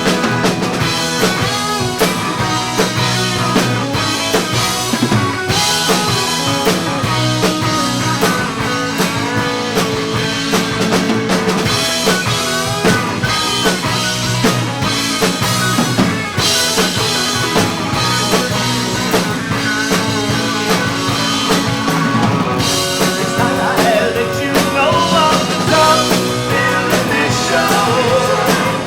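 A rock band playing a song live at full volume, drum kit driving a steady beat under the other instruments.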